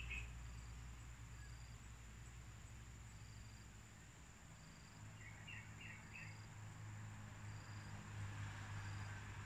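Faint insect chorus: a steady high buzz with short, high chirps repeating about once a second. A quick run of three small chirps comes a little past halfway.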